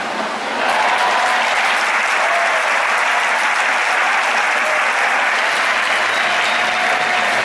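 Large baseball stadium crowd cheering and applauding. It swells suddenly about half a second in, then holds steady as a dense roar of clapping and voices.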